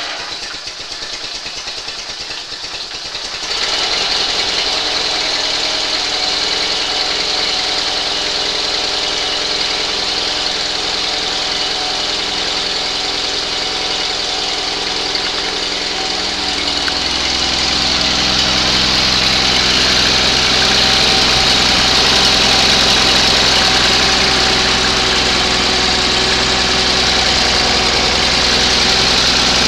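1978 Roper 20T garden tractor's rebuilt 20 hp Onan flat-twin engine running steadily on its first start after the rebuild. It grows louder about three and a half seconds in, and its note deepens and grows a little louder again about sixteen seconds in.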